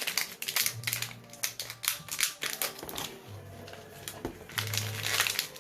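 Small packaged items and wrapping being handled: quick clicks and crinkles, busiest at the start and end with a quieter spell in the middle. Faint music plays underneath.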